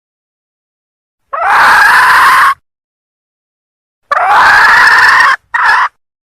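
Junglefowl hen calling: two long harsh calls, each rising at the start and then held, and a short third call right after the second. A lure call that draws cock junglefowl.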